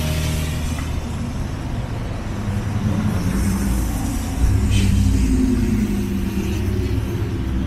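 A motor vehicle engine running, a steady low rumble.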